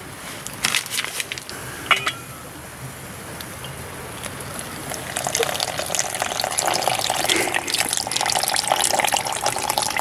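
A paper cocoa packet crinkling and being tapped out over a tin can in the first two seconds, then from about five seconds in hot water poured in a thin steady stream into the metal can, filling it.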